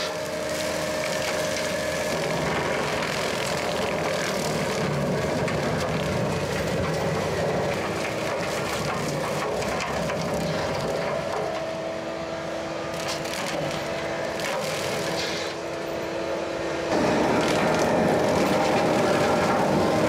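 Bobcat T770 skid steer's diesel engine running hard to drive a high-flow hydraulic direct-drive brush mower, its blades cutting and mulching aspen saplings, with a steady whine over the engine noise. It gets louder about 17 seconds in.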